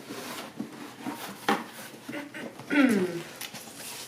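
Rustling and light knocks from a cardboard box and its packing being handled during an unboxing, with a sharp knock about a second and a half in. A brief voice sound, falling in pitch, comes near three seconds.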